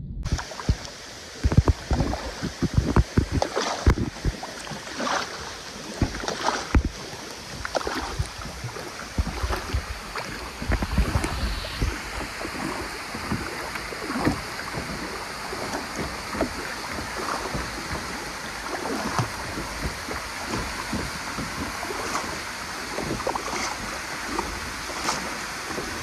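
Water splashing and sloshing around a camera held at and below the surface, with many irregular splashes and knocks in the first half. From about halfway it settles into a steadier rush of water from a waterfall, with occasional small splashes.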